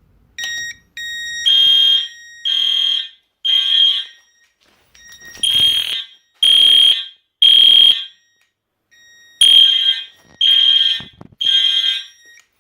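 Fire alarm horns sounding in the temporal-three evacuation pattern: three blasts, a pause, then three more, repeated three times. The pattern shows the panel has been put into drill.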